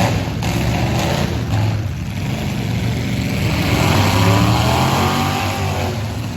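Demolition derby cars' engines running and revving, one sweeping up and down in pitch around the middle, with a few knocks in the first two seconds.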